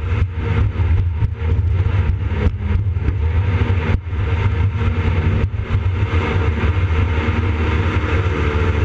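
Wattscraft jet boat's engine running steadily.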